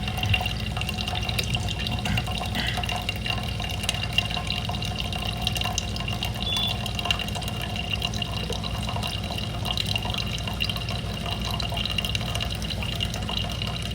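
Steady rushing noise of running water, with a faint steady high tone.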